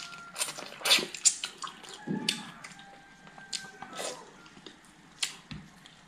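Close-miked eating sounds: wet lip smacks, chewing and sucking as chicken is gnawed off the bone and eaten from the fingers. Sharp smacks come about a second in and again near the end.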